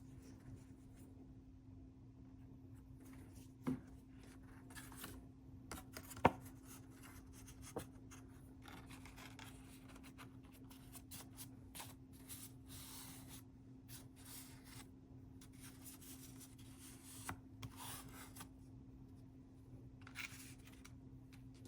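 Quiet rustling and handling of cardstock and paper while a pocket is glued on, with a few light taps. The sharpest tap comes about six seconds in, and a faint steady hum sits underneath.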